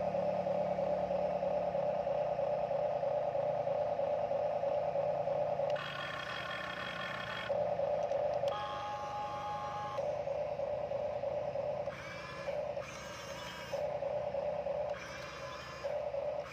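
Huina remote-control toy excavator's small electric motors whining as it works its boom and drives on its tracks. The whine holds steady for about six seconds, then changes tone several times as different motors start and stop.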